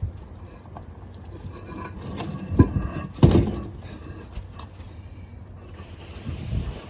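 Two dull thumps, about two and a half and three and a quarter seconds in, from paver-laying work, then a soft hiss near the end.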